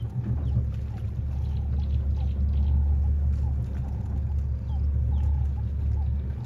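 Small boat's outboard motor running low and steady, with brief bird chirps repeating over it.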